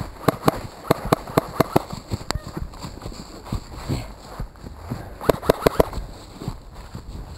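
Hurried footsteps through dry leaf litter, with two runs of sharp clicks: about seven in the first two seconds, and a quicker cluster of about six some five seconds in.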